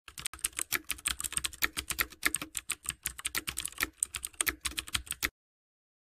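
Rapid computer keyboard typing: a fast, irregular run of key clicks that stops suddenly about five seconds in.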